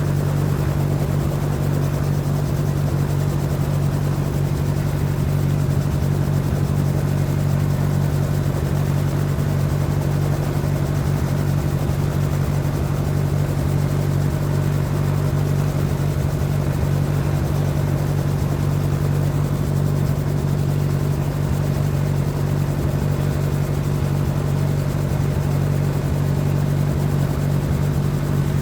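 Helicopter running steadily: a constant low hum of engine and rotor, unchanging in pitch and level.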